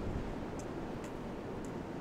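Ocean surf washing steadily on a beach, with three faint high ticks.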